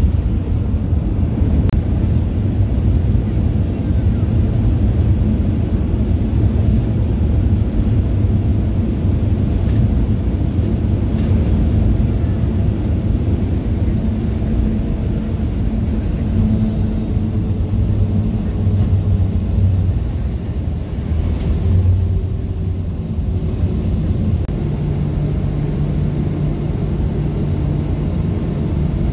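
Cabin noise of a Boeing 737-500 on its landing rollout: a loud, steady low rumble of the engines and the wheels on the runway as the jet decelerates. In the second half a faint whine falls slowly in pitch.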